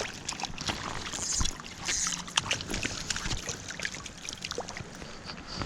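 Water splashing and dripping in many small irregular splashes: a freshly netted brown trout stirring in the landing net.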